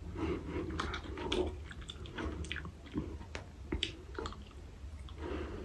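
A person chewing and biting into seafood, with wet mouth clicks and smacks scattered throughout.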